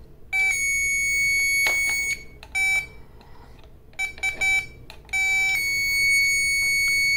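Power Probe circuit tester giving a high electronic beep while it feeds power from a good battery into a dead 12 V battery. A long beep comes first, then a few short beeps, then a steady unbroken tone from a little past halfway.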